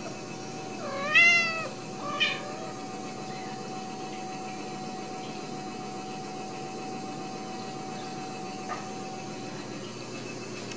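Ragdoll cat meowing twice: one rising-and-falling meow about a second in, then a short one right after, over a faint steady hum.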